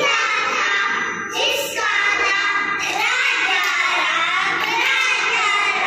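A group of young children singing a song together in unison, without a pause.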